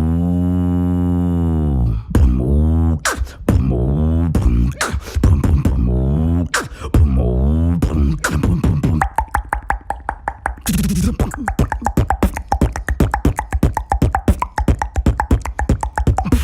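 Beatboxing: a human voice makes long, low, pitch-bending tones over kick-drum beats for about nine seconds, then switches to a fast run of sharp mouth clicks and snares.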